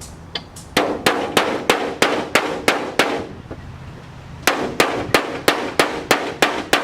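A hammer striking sheet metal in two runs of about three blows a second, each blow a sharp clang with a short metallic ring, with a pause of about a second and a half between the runs; the blows are bending a panel edge over.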